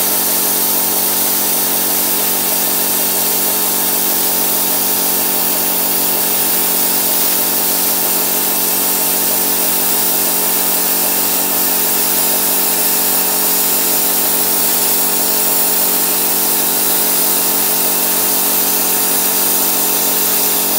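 Tenya Cut60 air plasma cutter cutting through 8 mm steel plate: a steady, loud hiss of the arc and compressed-air jet with an even hum under it, holding unchanged through one long cut.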